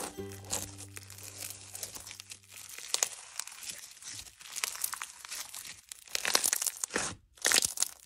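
Hands squeezing, stretching and pulling apart a fluffy, bumpy slime, giving a dense crackling and tearing sound with many small pops, loudest in a couple of squeezes near the end.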